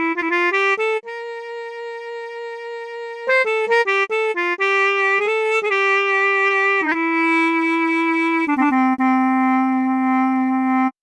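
A sampled wind instrument from an SF2 brass soundfont plays an unaccompanied melody. A quick run of short notes leads into a long held note; after another run come held notes that step down to a low sustained note, which cuts off just before the end.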